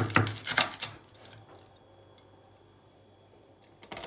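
Large kitchen knife sawing through the crisp crust of a baked bread pizza on a wooden cutting board: a quick run of crunching strokes in the first second, a pause, then the crunching starts again near the end.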